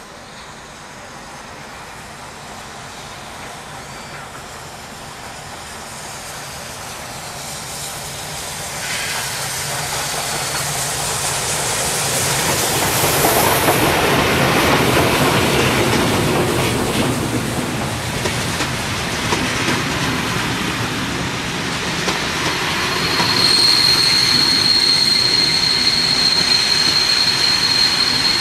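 Steam-hauled passenger train led by Class 52 'Kriegslok' 2-10-0 No. 52 4867 approaching and running past. The noise builds as the locomotive draws near and goes by, then the coaches rumble and clatter past on the rails. A steady high wheel squeal sets in about two-thirds of the way through.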